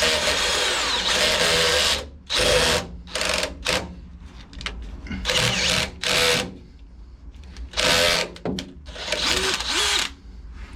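Electric drill boring a hole with light pressure, slowly cutting its way through. It runs steadily for about two seconds, then in a series of short bursts with pauses between.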